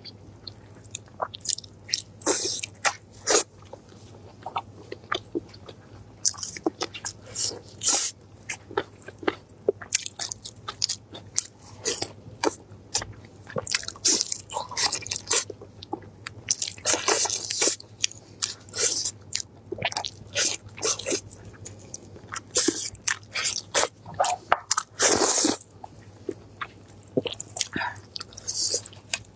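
Close-miked eating of sauce-glazed roast meat on the bone: irregular bites, wet chewing and smacking, and the meat being torn apart by hand, with many short sharp sounds throughout. A faint low steady hum lies underneath.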